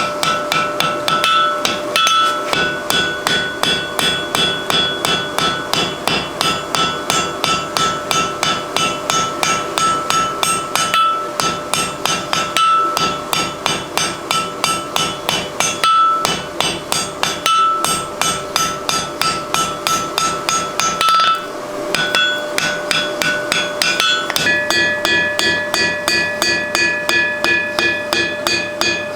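Hand hammer striking hot mild steel on an anvil in a fast, even rhythm, about three blows a second, the anvil ringing between strikes. This is a forge-welded collar on a round bar being shaped with a smaller hammer. A brief pause comes about two-thirds of the way through, after which the ring changes pitch.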